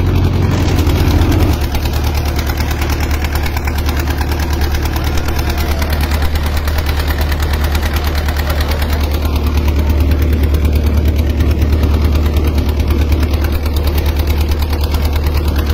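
Engine of a small wooden boat running steadily under way, a deep, fast, even pulse; the level dips slightly about a second and a half in.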